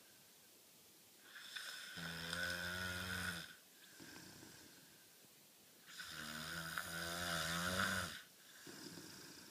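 Snoring during sleep: two long, buzzing snores about four seconds apart, with softer breaths between them.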